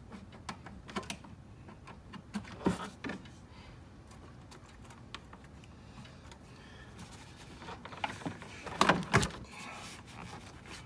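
Hands working in an engine bay, moving a hose clamp and other hose and plastic parts out of the way: scattered small clicks and knocks, with a louder run of sharp clicks about nine seconds in.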